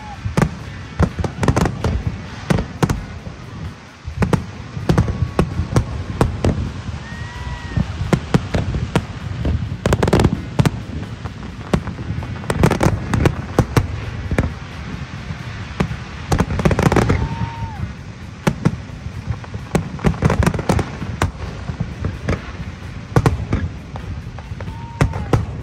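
Aerial fireworks shells bursting in rapid succession: many sharp bangs overlapping with crackle, heaviest about ten seconds in and again around seventeen seconds.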